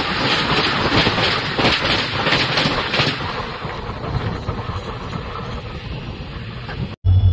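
Coaches of an Indian passenger train rushing past at track level, their wheels clattering rhythmically over the rails. The noise fades as the last coaches go by. It cuts off abruptly about seven seconds in, and a loud, steady low hum starts.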